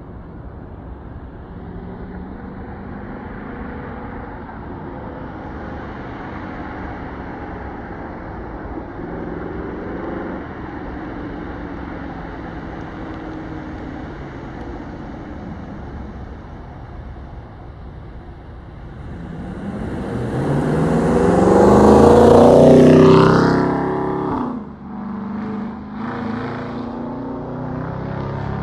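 Dodge Charger Daytona's Hemi V8 exhaust accelerating hard on a pull. It is heard faintly in the distance at first, then rises to a loud full-throttle pass about 21 to 23 seconds in, and drops sharply in pitch and level as it goes by and moves away.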